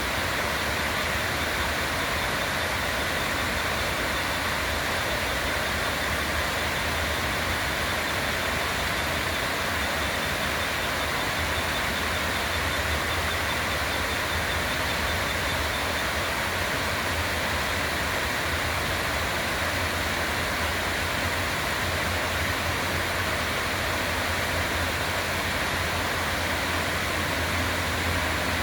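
River water flowing steadily, an even rushing hiss with a low rumble beneath it.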